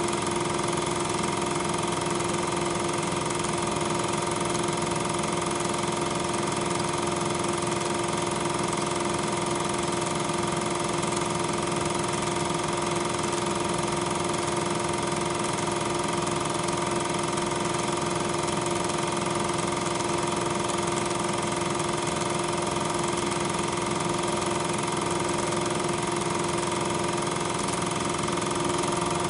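Constant hum with several steady tones over hiss, unchanging throughout: machine or electrical noise on the soundtrack of a silent 8mm film transfer, not sound of the trains pictured.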